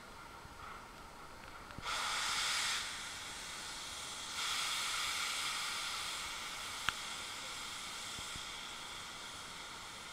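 Steam locomotive venting steam with a loud hiss: a short burst about two seconds in, then a longer one from about four seconds in that slowly fades.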